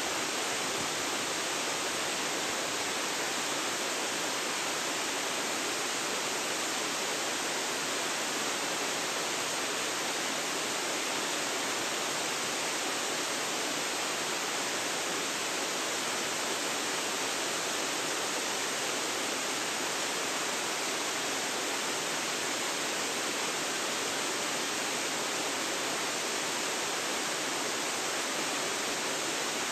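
Waterfall: falling water making a steady, unbroken rush that holds the same level throughout.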